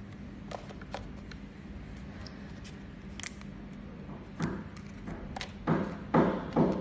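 Hands handling plastic-wrapped items and setting them into a cardboard box: scattered light clicks and crinkles, then three dull knocks against the box near the end, over a faint steady hum.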